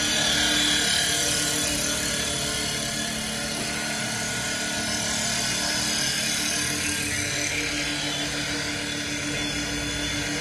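CNC wood lathe running, its motors and cutters turning a wooden workpiece: a steady machine hum with one constant tone and a high hiss.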